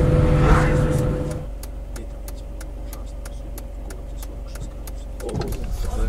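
Car cabin noise while driving: steady engine and road rumble that drops to a quieter low hum about a second and a half in, with a quick run of light ticks, about four or five a second, over it.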